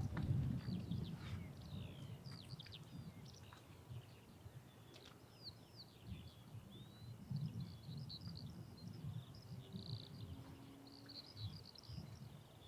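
Small birds singing and chirping, many short quick whistled notes overlapping, over a low irregular rumble that swells at the start, about halfway through and near the end.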